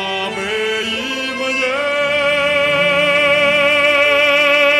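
An opera-trained male voice sings a Buryat folk song, accompanied by an ensemble of Buryat folk instruments. He steps up through a few short notes, then from about two seconds in holds one long note with a wide vibrato.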